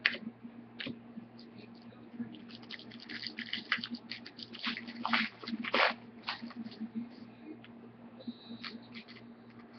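Trading cards being handled and set down on a tabletop: a run of light clicks and rustles of card stock, busiest in the middle.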